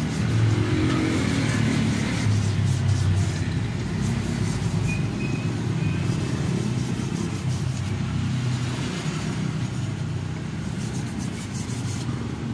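Motorstar 150 motorcycle engine running after its clutch repair. It runs louder for the first few seconds, then settles to a steady run.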